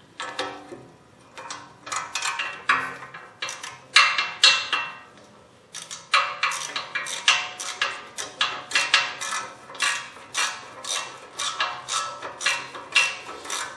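Metal-on-metal clicking and clinking of hand tools working the bolts of a rear wheel hub. A few scattered clinks at first, then about halfway through a steady run of sharp clicks, about three a second.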